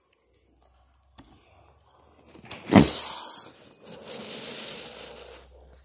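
Handling noise: a sudden thump about halfway through, followed by rustling and scraping that comes in two stretches.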